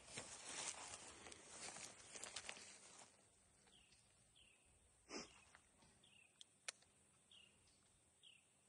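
Near silence outdoors: a faint background haze for about three seconds, then a few short, falling bird chirps roughly a second apart and a couple of faint clicks.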